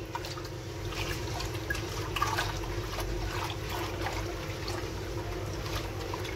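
Cloth bread wraps being hand-washed in a pot of foamy detergent water: a hand swishes and squeezes the cloth, giving irregular sloshes and small splashes. A steady low hum runs underneath.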